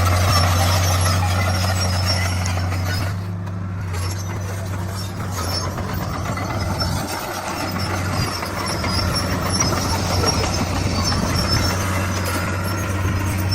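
Komatsu D41 bulldozer's diesel engine running steadily with a deep hum and a rough mechanical noise over it, easing a little a few seconds in, then coming back up.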